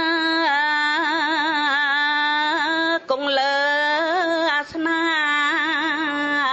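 A single voice singing or chanting a slow melody in long held notes with wavering ornaments, pausing briefly twice for breath.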